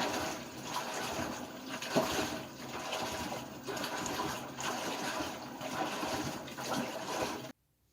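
Water running and splashing in a washing machine tub. It stops abruptly near the end.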